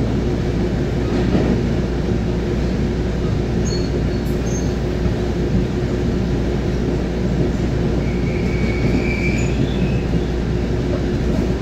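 EXO commuter train running at speed, heard from inside a passenger coach: a steady rolling rumble with a low, even hum. A faint high-pitched whine comes in for a second or so near the end.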